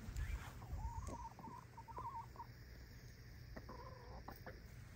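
Backyard poultry calling faintly: a long wavering trill about a second in and a shorter one near the end.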